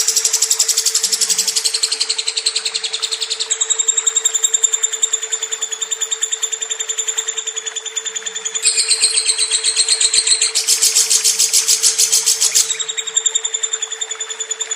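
Lovebird's long, rapid chattering trill (the 'ngekek' song), held without a break and shifting pitch a few times. A steady hum runs underneath.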